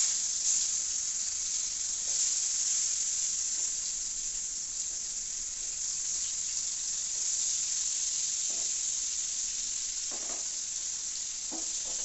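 Food sizzling as it fries in hot oil in a frying pan on a gas stove: a steady hiss that swells in the first couple of seconds as pieces are laid into the oil.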